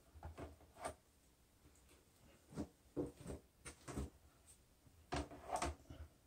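Faint, scattered taps and scrapes of fingers and a small tool pressing Bondo body filler into a rust hole in a steel bathtub, about eight short knocks over six seconds.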